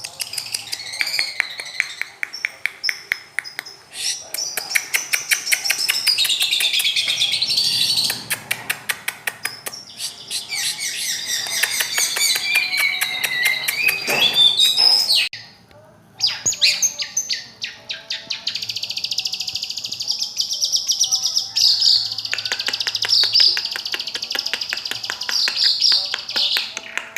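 Long-tailed shrike (cendet/pentet) singing a fast, continuous chattering song of rapid repeated notes and sweeping pitch glides, with a brief pause a little past halfway.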